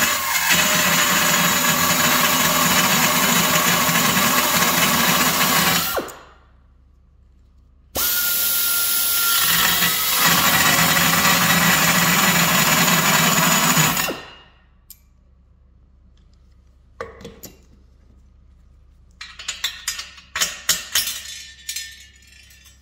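Pneumatic straight die grinder with a round grinding burr, running at full speed and grinding into the head of a stainless steel M6 countersunk bolt. It runs in two bursts of about six seconds each and winds down after each. Near the end there is a short cluster of sharp clicks and knocks.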